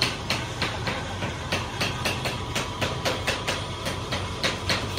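Sharp knocks, about three or four a second and unevenly spaced, in a foundry workshop over a steady machinery hum.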